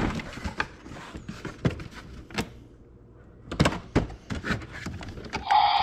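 Plastic clicks and knocks as a boxed Terra by Battat toy dinosaur is handled and its button pressed; about five and a half seconds in, the toy's electronic roar sound effect starts and carries on.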